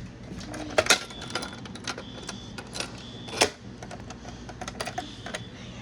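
Clicks and knocks from handling a fire alarm control panel during a reset, with two sharp knocks about a second in and another loud one past the three-second mark. A high-pitched beep keeps pulsing on and off about once a second over a steady low hum.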